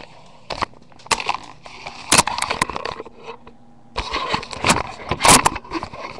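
Handling noise close to a phone's microphone: fingers rubbing and knocking against the device in irregular scrapes and clicks, loudest about two seconds in and again near five seconds.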